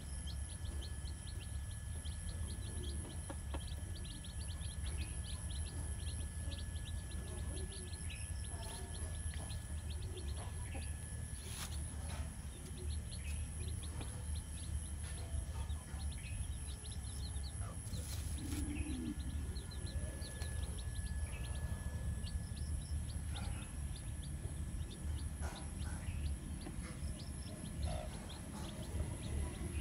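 Chicks peeping over and over in short high chirps while a hen forages with them, over a steady low background rumble.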